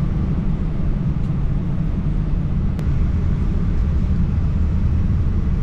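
Steady low rumble and airflow hiss inside the cabin of an Air Premia Boeing 787-9 airliner in flight.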